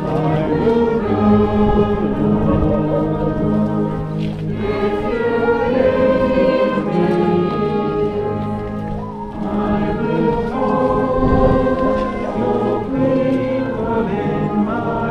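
A hymn sung by a gathered crowd to brass band accompaniment, moving through slow, held chords.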